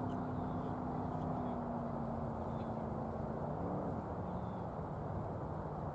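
A steady engine hum over outdoor background noise. Its pitch shifts a little over halfway through, then holds lower.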